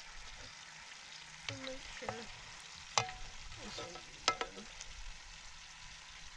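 Tilapia frying in a pan: a steady sizzle, with a couple of sharp clicks about three and four seconds in.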